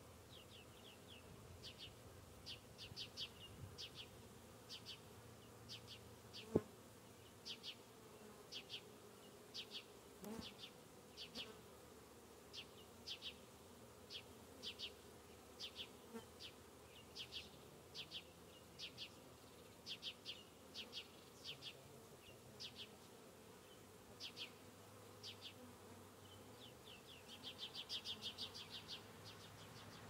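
Faint buzzing of honeybees flying around a hive entrance. Short high-pitched chirps come in small groups throughout, thickening near the end, and there is one sharp click about six seconds in.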